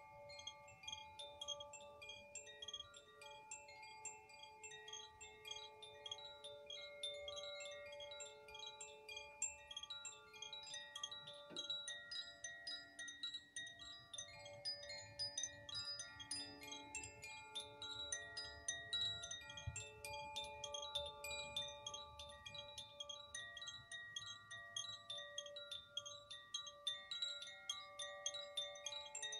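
Metal chimes tinkling in a continuous cascade of many quick light strikes, their ringing tones overlapping and sustaining at many different pitches.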